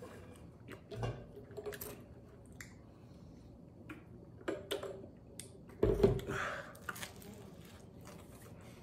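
Eating and drinking sounds with knocks from a large plastic water jug being picked up and set back on the table; the loudest is a deep thump about six seconds in, followed by about a second of softer noise.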